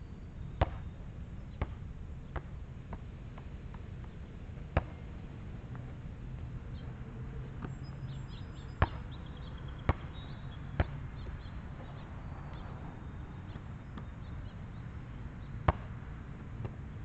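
A basketball bouncing on an outdoor asphalt court, heard from a distance as sharp separate slaps. Near the start comes a run of four bounces with shortening gaps as the ball drops from the hoop, then single bounces are scattered through, over a steady low background rumble.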